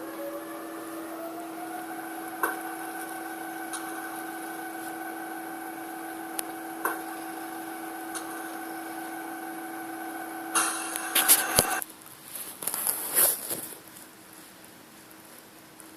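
Zimo digital sound decoder in an LGB G-scale model locomotive playing a locomotive's running sound. A steady hum runs throughout, and a whine rises in pitch over the first two seconds and then holds, with a few clicks. From about ten and a half to fourteen seconds in comes a loud burst of hissing and squealing, after which only the quieter hum remains.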